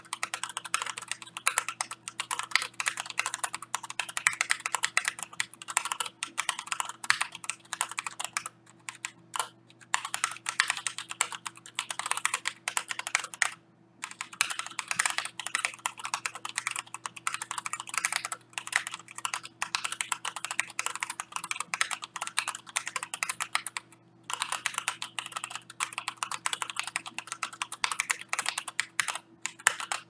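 Continuous fast typing on an Atreus62 mechanical keyboard with Gateron Red linear switches and PBT keycaps: a dense clatter of keystrokes, broken by three brief pauses.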